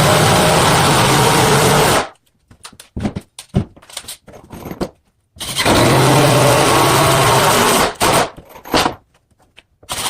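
A power tool runs steadily with a low hum and cuts off abruptly about two seconds in. A few clicks and knocks follow, then it runs again for a couple of seconds before stopping, with more clicks near the end.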